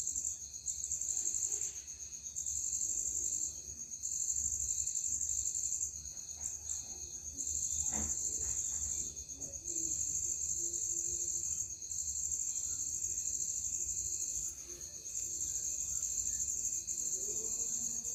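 Crickets trilling in a steady high-pitched chorus that drops out briefly every two seconds or so. A single sharp click sounds about eight seconds in.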